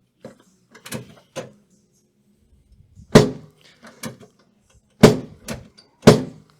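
Chiropractic drop table: three loud, sharp thuds as the drop section snaps down under the adjusting thrusts, the first about three seconds in and the others about two and three seconds later, with lighter clicks and knocks between them as the table is set.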